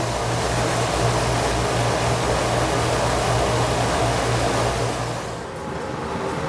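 Steady mechanical hum under a broad rushing noise, dropping away a little after five seconds in.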